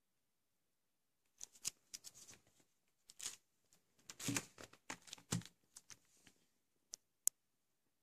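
Plastic packaging rustling and crinkling as it is handled, in quick irregular bursts, followed by two sharp clicks near the end, the second one loud.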